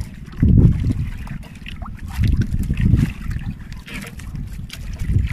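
Sea water lapping and splashing against the hull of a small wooden outrigger boat, under a low rumble that rises and falls in uneven surges.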